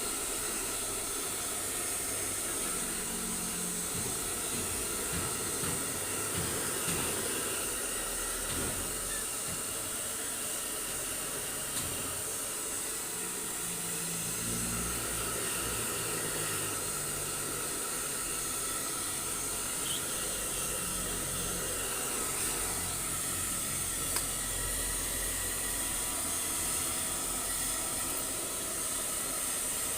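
Blow dryer blowing steadily on a husky's still-wet coat after a bath.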